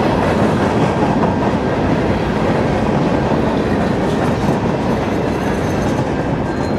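A train passing at close range: a steady, loud rumble of wheels running on the rails, easing off slightly near the end.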